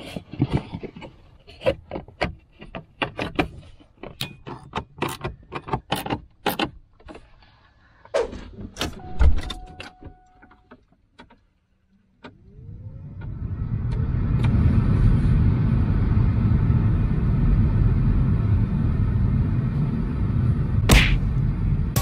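A string of plastic clicks and knocks as a lower dash panel is snapped back into place. About twelve seconds in, a freshly replaced HVAC blower motor in a 2003 Chevrolet Trailblazer spins up with a rising whir. It then runs with a steady rush of air, with one sharp click near the end.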